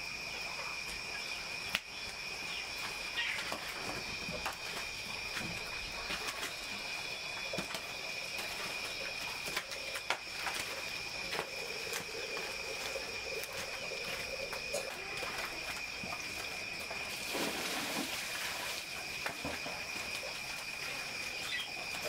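A steady, high-pitched chorus of insects, with scattered crackles and pops from a burning wood fire. A louder hiss comes in over the last few seconds.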